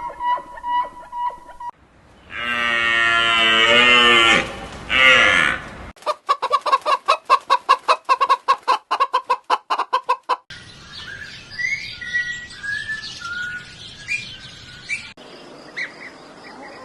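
A string of different animal calls, one after another: chicken clucking at first, then a loud, long pitched call, a fast run of short calls at about five a second, and bird-like chirps near the end.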